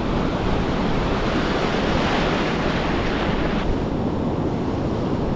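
Ocean surf breaking and washing in white water, with wind buffeting the microphone. A wave swells louder about two seconds in and eases back a little past halfway.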